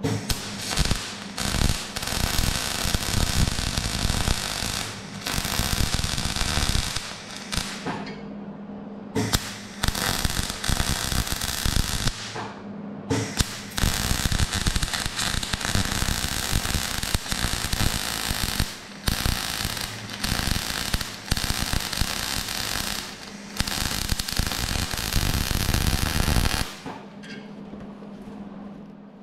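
Electric welding arc crackling and spitting on steel, in runs of several seconds broken by short pauses, stopping near the end.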